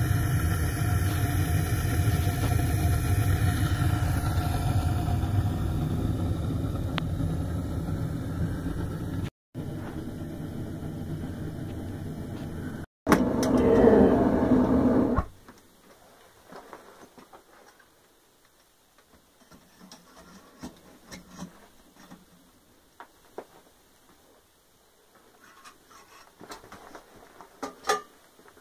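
Homemade propane Reil burner, run without a regulator, firing into a paint-bucket bronze-melting furnace with a steady low rushing roar, interrupted by two abrupt cuts. The roar stops suddenly about fifteen seconds in, leaving quiet with faint scattered clinks and knocks.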